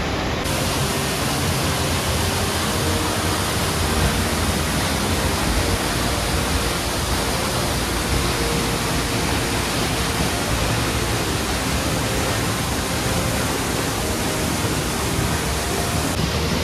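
Waterfall heard up close: a steady, loud rush of falling water.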